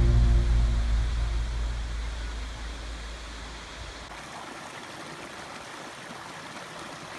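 Steady rushing of an Alpine waterfall. A deep low note left over from the closing music fades during the first few seconds and stops about four seconds in, leaving only the water.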